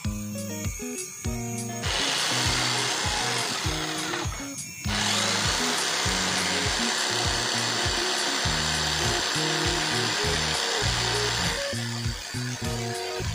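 Krisbow 65 mm electric jigsaw with a fine-cut blade cutting through a 6 cm-thick mahogany beam. It starts about two seconds in, stops for a moment near the middle, then cuts steadily until shortly before the end. Background music plays underneath.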